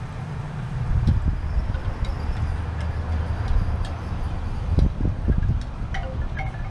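Gusty wind buffeting the microphone, a low uneven rumble that strengthens about a second in, with a few faint clicks and short chirps over it.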